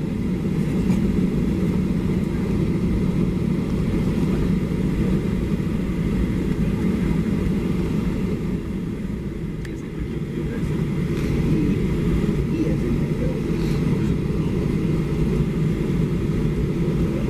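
Cabin noise of a Boeing 737-700 taxiing, its CFM56-7B jet engines running at low power with a steady deep rumble. The rumble dips briefly about ten seconds in, then swells again.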